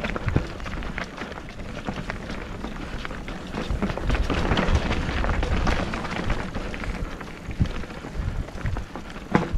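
Mountain bike being ridden over a wet dirt trail: tyre and rattle noise with frequent clicks and knocks from the bike, growing louder around the middle.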